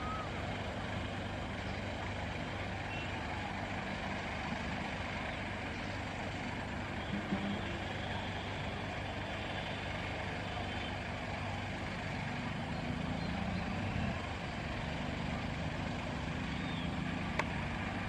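Steady background rumble of distant motor traffic, with a low engine drone that swells a little in the middle.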